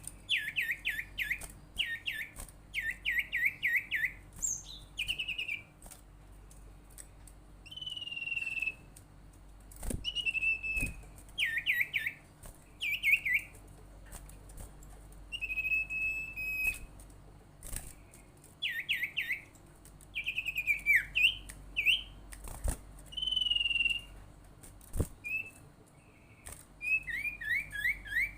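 Common iora (sirtu, cipow) singing. It gives quick runs of short falling chirps alternating with single held whistles, repeated in phrases every second or two.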